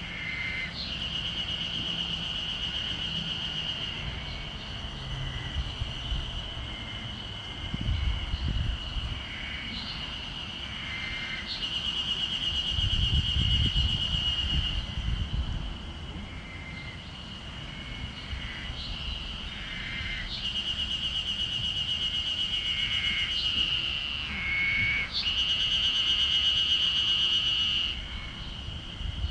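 Ezo harusemi cicadas singing in chorus: a steady high-pitched buzz that swells several times into louder, pulsing bouts lasting a few seconds each, with short chirping calls over it.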